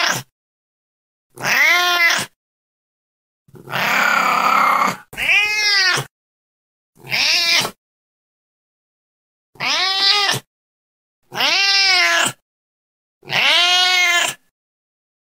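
Domestic cat meowing over and over, about seven separate meows with short silent gaps between them. Each meow rises and then falls in pitch, and one about four seconds in is harsher and more drawn-out.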